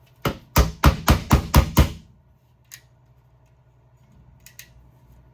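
A locked-up Haisstronica wire crimper being knocked hard against a surface, about seven quick knocks in under two seconds, to free the jammed tool. The jam is put down to a scrap of plastic caught in it.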